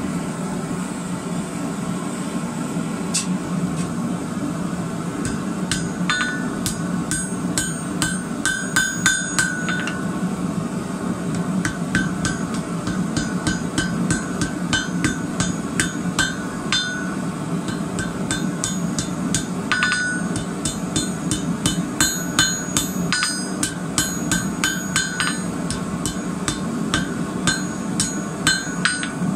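Hand hammer striking red-hot twisted rebar, a wheat twist being forged, on a steel anvil. The blows come in runs of quick ringing strikes with short pauses between them, over a steady low drone.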